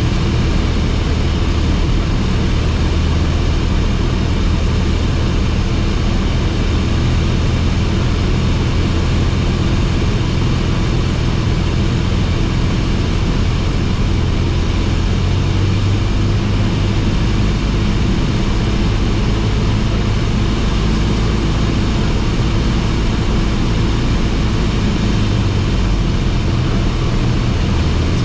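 Cessna 172S's four-cylinder Lycoming engine and propeller running steadily in flight, heard inside the cockpit. The engine note shifts slightly about halfway through and returns near the end.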